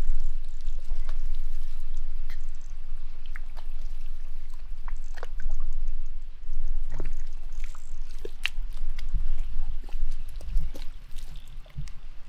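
Hands digging and groping through wet mud and shallow water, with irregular squelches, splats and small splashes over a steady low rumble.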